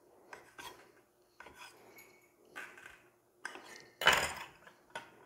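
Kitchen knife chopping dough ropes into small pieces on a marble board: a string of short, sharp taps of the blade on the stone, with a louder, longer clatter a little after four seconds in.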